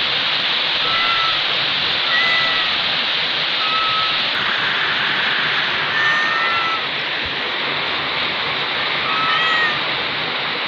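Kitten mewing: about five short, high mews a second or two apart, over a loud steady hiss.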